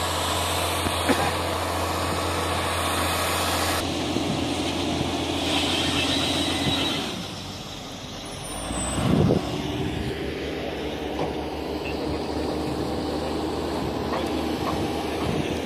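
Heavy vehicle engine running with a steady low hum. The sound dips about eight seconds in, followed by a short, louder rush of noise.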